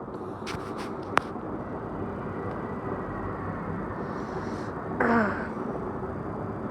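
Steady outdoor background noise, with a single sharp crack about a second in and a brief sound falling in pitch about five seconds in.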